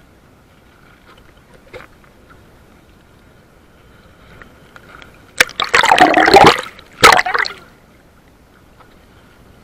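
Seawater splashing over and around an action camera held at the wave surface: two loud splashes, one of about a second starting some five seconds in and a shorter one about seven seconds in, with little else heard.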